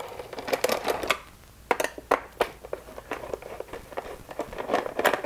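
Cover being taken off a Stihl MS291 chainsaw: a short scrape, then scattered sharp clicks and taps.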